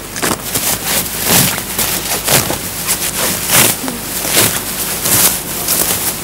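Tall dry grass and weeds being grabbed and torn up by hand: a run of crisp rustling, tearing strokes, irregular, about one or two a second.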